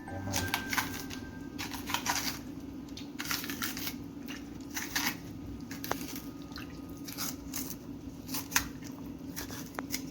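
Green bananas being scored with a knife and their skins torn off by hand: irregular scraping and tearing strokes, over a steady low hum.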